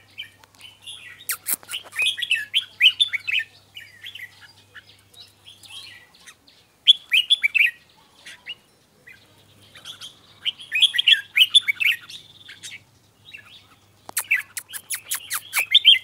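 Caged red-whiskered bulbul singing in about four bursts of quick warbled phrases with short pauses between. There are a few sharp clicks, with a quick run of them near the end.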